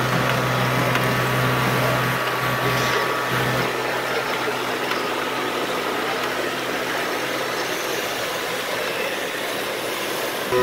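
Steady machine hum from running scale-model gravel-plant equipment, under a constant murmur of background voices.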